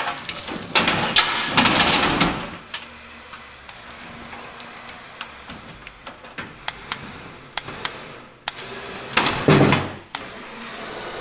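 Lifting chains rattling and metal clanking as a large tractor radiator in its steel shroud is handled on a hoist. It is loud for the first two seconds or so, then quieter with scattered sharp clicks and knocks, with another loud burst of clatter about nine seconds in.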